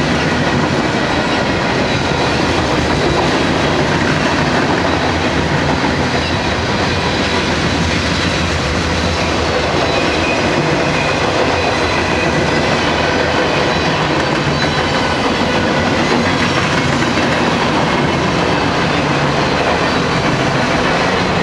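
A long freight train rolling past, its steel wheels running on the rails in a loud, steady rumble that does not let up.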